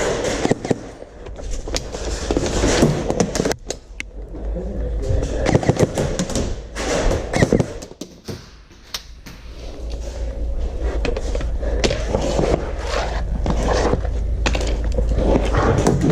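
Airsoft play: a steady low rumble of movement and gear, with scattered sharp clicks and knocks of airsoft guns firing and BBs striking. It grows quieter about eight seconds in, then builds again.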